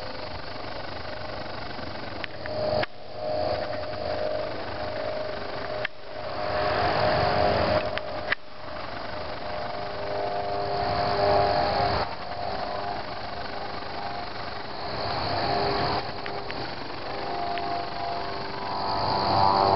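Crickets chirping steadily in a high band, under engine noise from passing vehicles that swells and fades several times. The sound cuts out briefly a few times.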